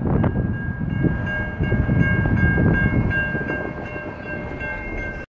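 Railway level-crossing warning bell ringing steadily, set off by a hy-rail pickup truck on the track, over a rumble of wind on the microphone. The sound cuts off suddenly near the end.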